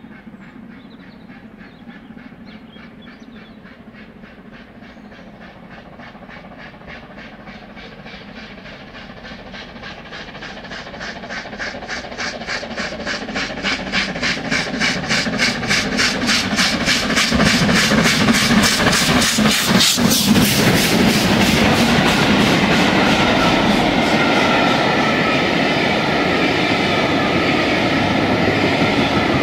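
LMS Black 5 two-cylinder 4-6-0 steam locomotive working hard up a bank, its rapid, even exhaust beats growing steadily louder as it approaches and passes close by about two-thirds of the way in. The loud beats then give way to the steady rush and rumble of the coaches rolling past.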